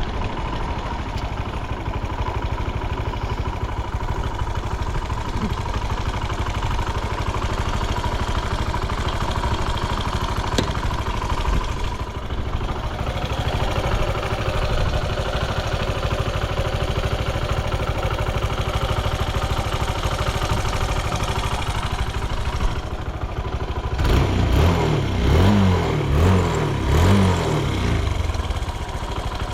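Honda Ape 100 Type D's air-cooled single-cylinder four-stroke engine idling steadily, then revved in about four quick throttle blips near the end. The engine sounds healthy, with no abnormal noises.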